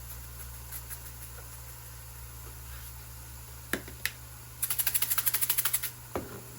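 Two sharp clicks, then a quick run of about a dozen sharp clicks, about ten a second, lasting just over a second.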